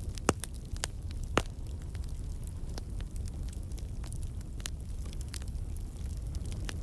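Campfire crackling: a steady low rumble of burning wood with scattered sharp pops and snaps. Two louder snaps come within the first second and a half.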